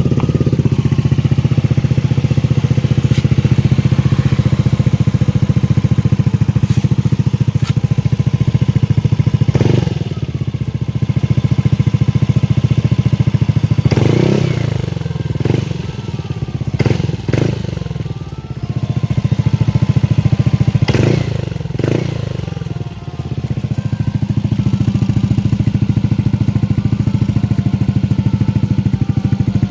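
Yamaha Aerox 155's single-cylinder four-stroke engine running through an aftermarket R9 Misano exhaust pipe, idling steadily. It is blipped up and down several times in the middle before settling back to idle.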